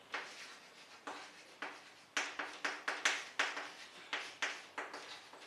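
Handwriting strokes: a string of short, quick scratches and taps of a pen or marker on a writing surface, several a second at times with brief gaps between.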